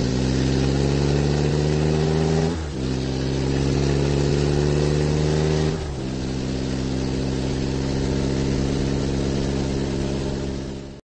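Engine sound effect of a motor vehicle pulling away and accelerating through the gears. Its pitch climbs, then dips at a gear change about two and a half seconds in and again about six seconds in, then holds fairly steady until it cuts off suddenly near the end.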